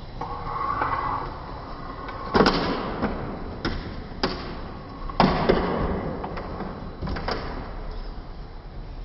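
A series of sharp knocks and thumps as kittens claw at, cling to and jump off the door of a front-loading washing machine, the loudest about two and a half and five seconds in.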